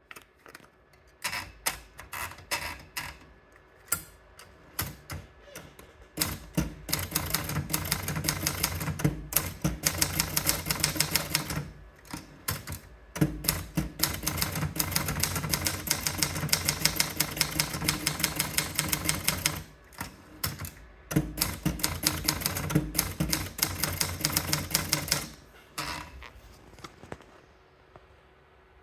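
Scheidegger typewriter being typed on. A few separate keystrokes at first, then long runs of rapid, continuous typing with two short pauses, before the strokes thin out and stop near the end.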